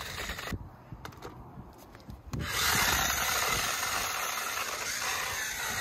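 Rough, rasping noise of a toy RC motorcycle's small electric motor and plastic wheels running over pavement. It drops away for a moment, then comes back louder about two and a half seconds in.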